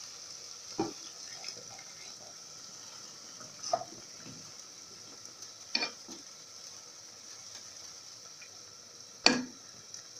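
Wooden spoon stirring bulgur in a nonstick pot over a steady sizzle, with four knocks of the spoon against the pot, the last and loudest near the end.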